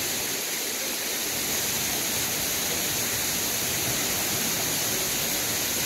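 A steady rush of water: an even hiss that holds level throughout, with no separate splashes standing out.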